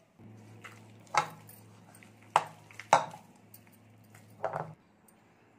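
A hand mixing wet maida-and-rava dough in a plastic bowl, with a few sharp clicks and knocks as it works, over a steady low hum that stops near the end.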